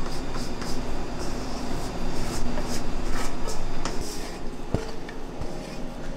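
A steady low machine hum and rumble, with scattered short soft scrapes and taps from a stainless steel mixing bowl and silicone spatula as thick macaron batter is poured and scraped into a piping bag.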